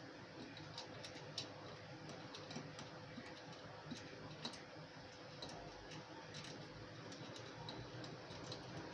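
Faint, irregular small clicks and ticks, a few a second, over a steady low hum.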